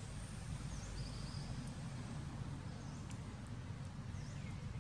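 Outdoor ambience: a steady low rumble with a few faint, brief high bird chirps, including a short trill about a second in.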